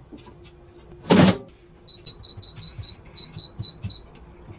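Cecotec air fryer's touch control panel beeping as its buttons are tapped to set the cooking time: about ten short, quick high beeps in two runs, after a brief louder noise about a second in.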